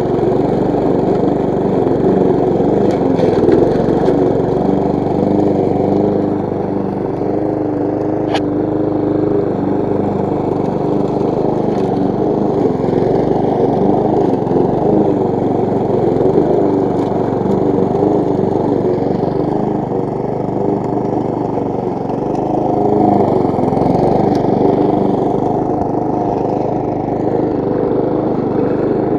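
Briggs & Stratton petrol engine of a push rotary lawn mower running steadily while mowing grass, with one brief click about eight seconds in.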